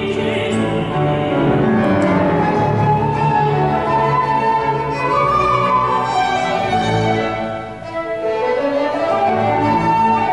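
Small string ensemble of violins, cello and double bass playing a classical instrumental passage in long bowed notes, with a brief dip in loudness about eight seconds in.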